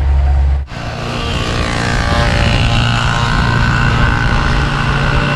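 Honda CG160 single-cylinder motorcycle engine running steadily on the road. The sound breaks off sharply under a second in and picks up again, growing slowly louder.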